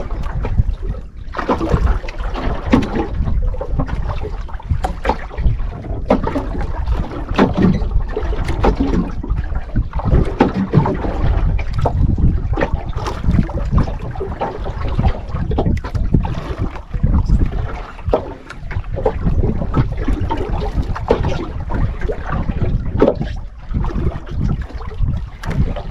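Wind noise on the microphone with water splashing against a small fishing boat at sea: a loud, steady low rumble broken by frequent irregular knocks.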